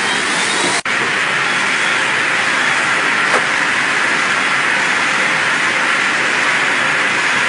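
Steam veneer dryer running: a loud, steady rushing machine noise with no change in pitch, broken only by a split-second dropout just under a second in.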